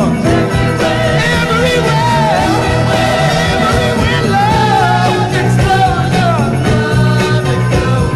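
Late-1960s soul single playing: a male lead vocal sings in sliding phrases over a band with a steady bass line and drums.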